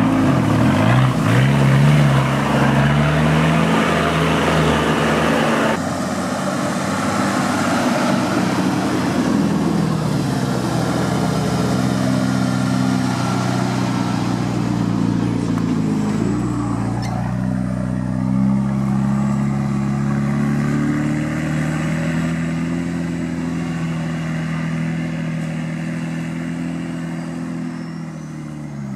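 Isuzu Trooper 4x4's engine working under load while crawling over rough off-road ground, its note rising and falling with the throttle. The sound changes abruptly about six seconds in.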